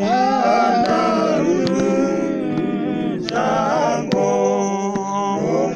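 Church congregation singing a cappella, many voices together without instruments, with a few sharp clicks.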